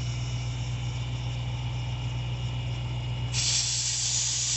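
Husky portable tire inflator's compressor running with a steady low hum, struggling as its air chuck is pressed against the tire's valve stem. About three and a half seconds in, a loud hiss of escaping air starts at the chuck and lasts a little over a second.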